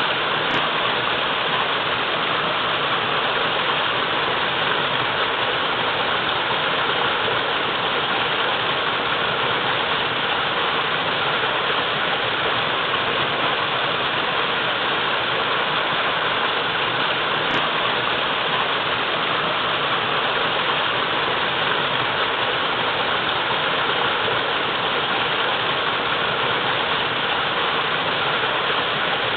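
Waterfall pouring steadily, a constant, even rush of falling water.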